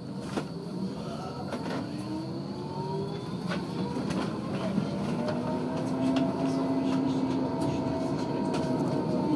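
Electric tram pulling away and gathering speed, its traction motors whining in several rising tones that level off as it reaches cruising speed, over a steady wheel-on-rail rumble with a few clicks. The sound grows gradually louder.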